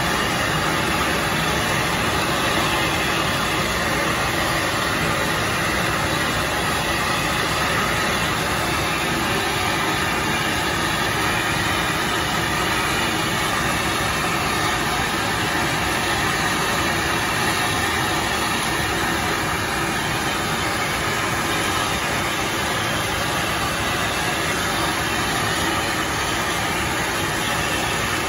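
Walt Disney World Railroad steam locomotive standing at a station, giving off a steady, even hiss with a low rumble underneath.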